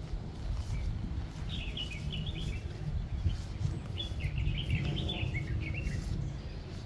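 Small songbirds twittering in two quick runs of high chirps a couple of seconds apart, over a steady low rumble.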